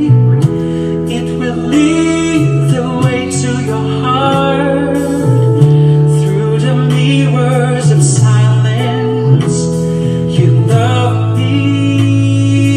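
A man singing a slow love ballad into a microphone over an instrumental backing track, holding long notes with vibrato.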